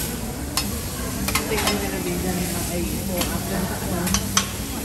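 Buffet ambience: a steady hiss with a faint murmur underneath, and several sharp clinks of serving utensils and plates.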